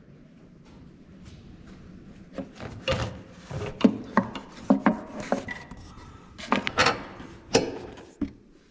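Hand-tool and metal-fitting handling noise: scattered clicks, knocks and rubbing as a fitting nut on a skid steer's air-conditioning line is worked into place by hand and wrench, starting about two and a half seconds in.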